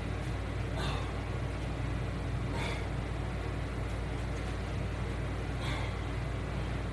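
Short, airy exhaled breaths about every two to three seconds, paced with resistance-band exercise reps, over a steady low hum.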